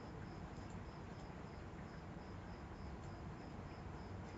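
Faint room tone: a steady low hiss with a faint high-pitched chirp repeating about twice a second.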